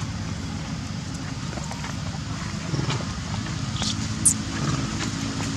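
Steady low hum of background noise, with a faint click and then one brief high squeak a little after four seconds in.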